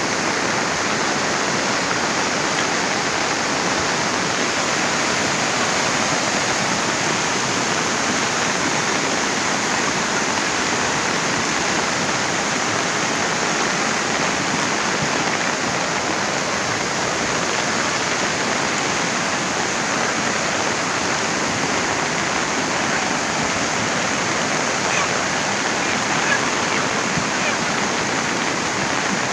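Floodwater rushing in a steady, unbroken stream.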